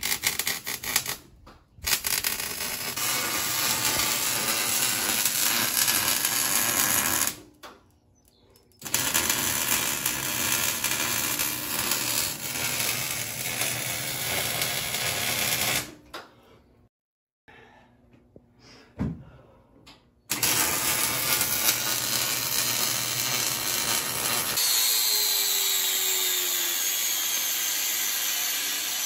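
Metalworking power-tool noise in several stretches broken by short gaps. In the last stretch an angle grinder cuts steel plate, its whine slowly dropping in pitch.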